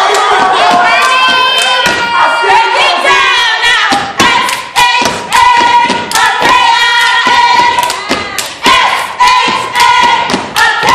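Step team stomping boots and clapping hands in rhythm on a stage floor, with many voices yelling and chanting over it. The stomps and claps come through sharper and more evenly spaced from about four seconds in.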